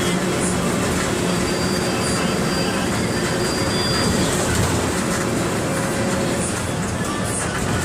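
Diesel engine of a Mercedes-Benz OF 1721 BlueTec 5 bus running steadily and loudly under way, with road and body noise. A thin, high whine sounds from about a second in until about four seconds in.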